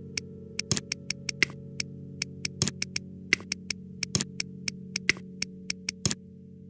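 Rapid computer mouse clicks, several a second at uneven spacing, over steady synthesizer background music that fades near the end.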